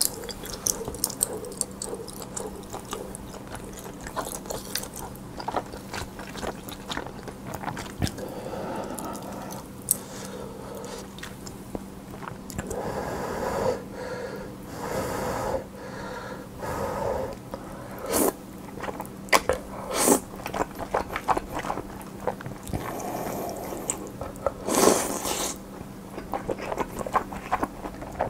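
Close-miked eating: chewing and crunching with wet mouth sounds and many short clicks, busier in the second half, over a steady low electrical hum.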